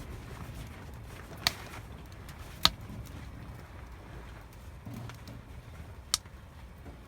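Three sharp clicks with a brief ring, about one and a half seconds in, near three seconds, and a little after six seconds, the middle one the loudest, over a steady low rumble.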